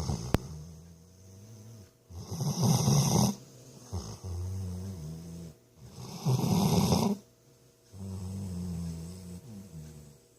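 Snoring in a slow, regular rhythm. A loud rasping snore comes on the in-breath about every four seconds, twice, and each is followed by a quieter, pitched, wavering out-breath. A single sharp click sounds just under half a second in.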